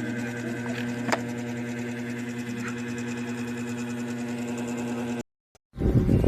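Small electric motor of a portable mini garlic chopper running with a steady hum and a few light clicks. It cuts off abruptly about five seconds in, and after a brief silence a loud, rough noise starts near the end.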